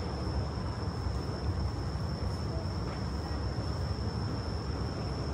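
Background ambience: a steady low rumble under a constant high-pitched whine, with a faint click about three seconds in.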